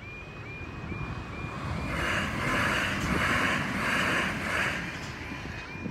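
Gatwick Express electric train passing over a level crossing: a steady rushing of wheels on rails that swells in a few even pulses through the middle. The crossing's warning alarm sounds faintly as a repeating tone, about twice a second.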